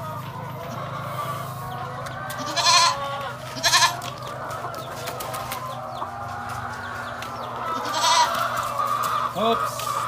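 Backyard chickens clucking, with short loud squawks about three and four seconds in and again near eight seconds, and young goats bleating now and then.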